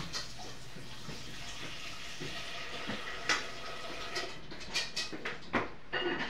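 Kitchen sounds: water running at a sink, with dishes clinking several times in the second half.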